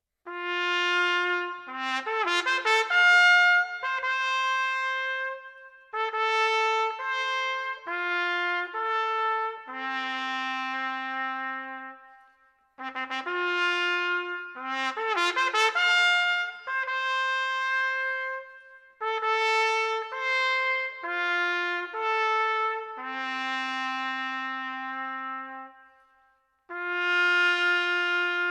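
Solo trumpet playing a slow, unaccompanied melody: one line of held notes in phrases, with short breaks about halfway and near the end.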